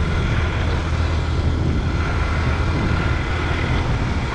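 Honda C90's small single-cylinder four-stroke engine running steadily under way on a dirt track.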